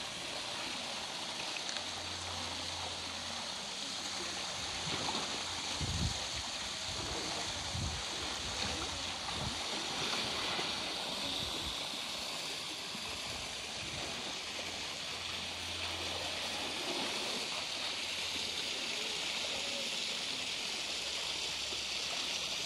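Water in a polar bear's swimming pool: a steady rushing wash with splashing and sloshing as the bear swims. A couple of dull low thumps come about six and eight seconds in.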